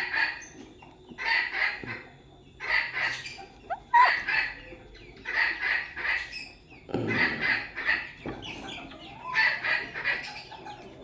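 Kate jali bantam chickens calling: a short call about every second and a half in a steady series, with a brief rising chirp about four seconds in.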